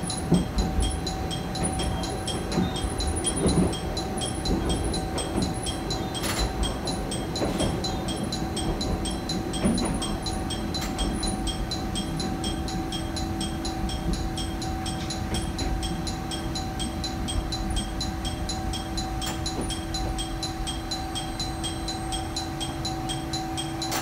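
Interior of a Moka Railway diesel railcar on the move: the engine and the wheels on the rails give a steady low rumble with an even hum, and a few light knocks in the first seconds.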